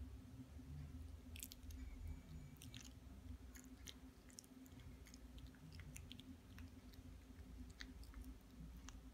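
Shih Tzu licking its lips and smacking its mouth: scattered faint, short wet clicks over a low steady hum.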